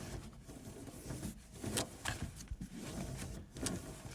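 Faint, scattered clicks and rustles of hands handling a rear seatbelt and its plastic trim.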